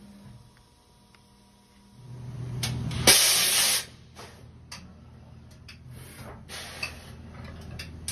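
Automatic tool change on a Cincinnati V-CNC500 vertical machining center. The tool carousel moves in with a low mechanical hum, then a loud hiss of compressed air lasts under a second, followed by several short air hisses.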